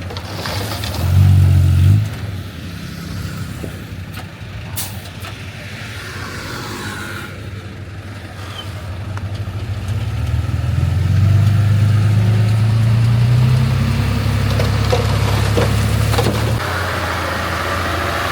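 Heavy-equipment diesel engine running, with a short loud rev about a second in and a longer rise in revs from about ten seconds in that holds and then drops back near the end.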